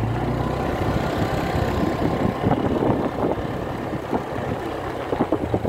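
Motorcycle engine running while riding over a rough, potholed dirt road: a steady low hum at first, then many short knocks and rattles through the rest.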